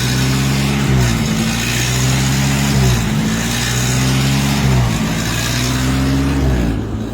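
Nissan 240SX engine running with its revs dipping and recovering about every two seconds, a hunting idle: the tachometer needle climbs toward 3,000 rpm and falls back again and again.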